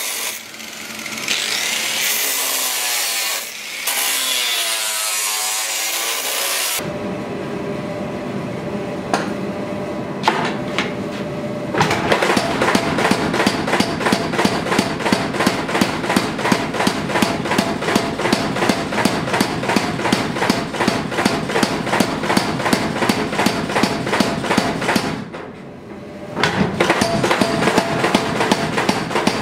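An angle grinder cuts metal plate, its whine rising and falling with the load. About seven seconds in it gives way to a power hammer: first a steady running hum, then fast, even blows on a hot metal bar, about five a second, which pause briefly near the end and start again.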